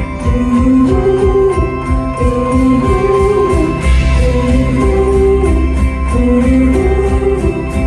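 Live band playing a passage of an indie-rock song: a steady drum beat and sustained bass under a repeating melodic line.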